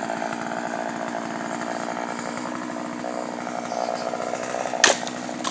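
1985 Poulan two-stroke chainsaw with a 20-inch bar running at a steady, even speed, with one sharp knock just before the end.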